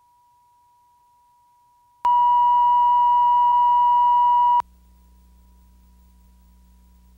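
Steady 1 kHz reference tone of a television bars-and-tone line-up, faint at first, then loud for about two and a half seconds from about two seconds in before it cuts off suddenly, leaving a low hum.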